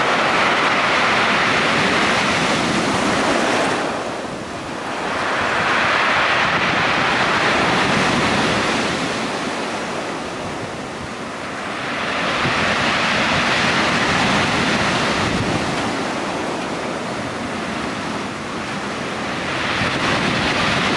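Storm surf on the Black Sea breaking and washing up a stony beach, a dense rushing noise that swells and eases with each set of waves, about every six or seven seconds.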